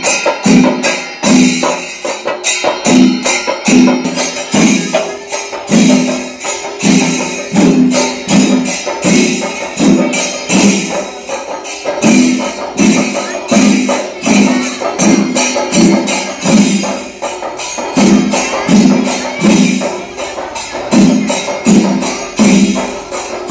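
Percussion ensemble of drums and small clashing cymbals playing a fast, steady rhythm, with heavier strokes about twice a second.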